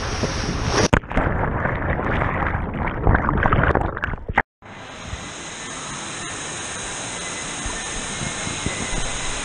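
Water rushing down an enclosed water slide, then a plunge into the splash pool and muffled churning and bubbling heard underwater. After a short break, a steady wash of hall noise and running water from an indoor water park with fountains going.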